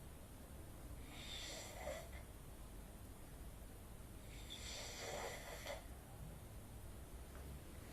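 A man snoring in his sleep: two snores, each about a second or more long, roughly three and a half seconds apart.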